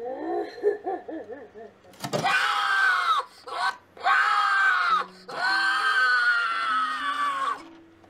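Jack-in-the-box lunging haunted-house prop: a warbling voice, then a sharp knock about two seconds in as the clown puppet bursts out through the doors, followed by three long, loud screams from the prop's speaker, each sliding down in pitch.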